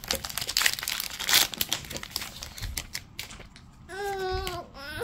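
Foil wrapper of a Pokémon TCG booster pack crinkling in the hands for about three seconds. Near the end comes a short held voice sound, like a hum.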